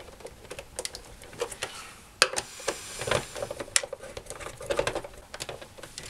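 Hand screwdriver driving a screw into a plastic stereo casing: a run of small irregular clicks and scrapes, with a sharper click about two seconds in.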